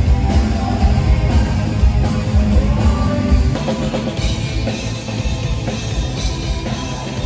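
Live rock band playing with drum kit and electric guitar, with singing over it; the mix changes about three and a half seconds in.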